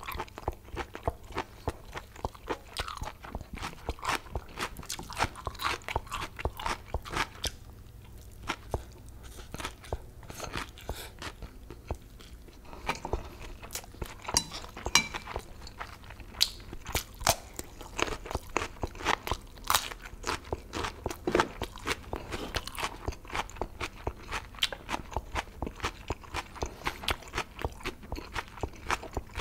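Close-miked chewing of boiled octopus and spicy Korean mixed noodles: an irregular run of sharp, wet clicks and crunchy bites, several a second.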